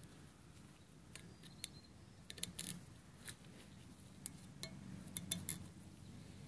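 Faint, scattered light clicks and clinks of small metal parts and fingers against a Ford 6.0L diesel's cast high-pressure oil rail as the old nipple-cup O-rings are pulled out of their bores.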